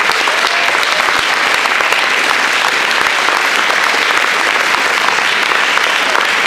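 An audience applauding steadily with dense clapping.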